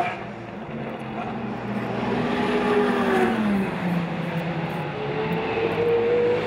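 Race car engines running out on the circuit: one engine's pitch drops as it goes by about three seconds in, and another climbs steadily near the end as it accelerates.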